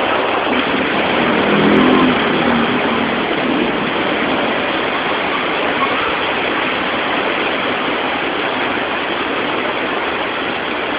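Heavy rain pouring down in a steady, loud rush. About one to three seconds in, a brief low droning sound rises out of it and fades.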